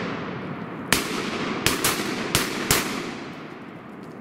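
Shotguns firing at ducks: five shots in under two seconds, starting about a second in, each with a long rolling echo through the timber that fades near the end.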